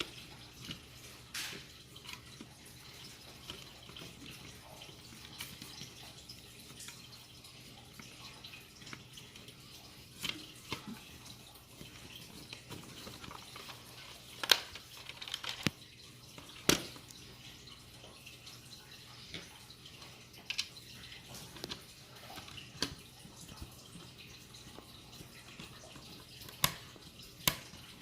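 Small plastic toy parts clicking and tapping as they are handled and fitted together, a scattering of sharp clicks over a faint steady background, two louder clicks about halfway through.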